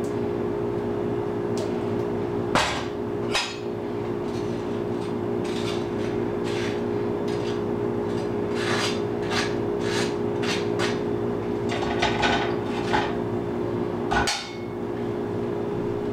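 Table knife scraping mayonnaise across a slice of toasted bread, a run of short rasping strokes, with a couple of sharper knocks before the spreading starts and one near the end, over a steady hum.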